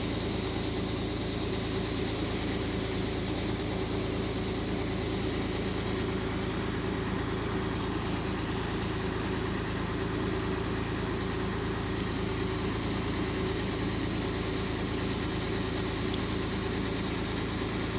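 Truck diesel engine idling steadily at an even, unchanging pace.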